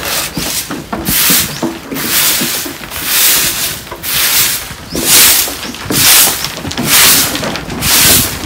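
Long-handled fibre broom sweeping a wooden plank floor: the bristles swish and scrape across the boards in even strokes, about one a second.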